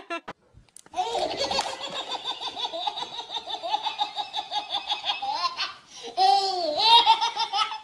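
A baby belly-laughing: a long, rapid, unbroken run of laugh pulses starting about a second in, then a brief break and a few more rising-and-falling squealing laughs near the end.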